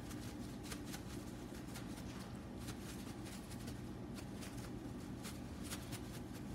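Seasoning blend shaken from a shaker container over raw whole chickens: a faint, irregular patter of many light ticks.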